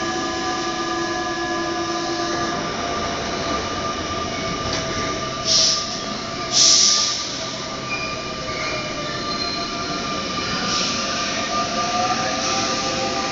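Paris Métro MP89CC rubber-tyred train at the platform, its electrical equipment giving a steady hum of several tones. There are two short hisses about five and a half and seven seconds in. Near the end the motor whine rises in pitch as the train starts to pull away.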